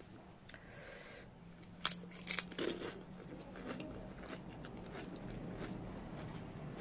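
Crisp fried pani puri shell cracking as it is bitten, two sharp crunches about two seconds in, followed by quieter chewing.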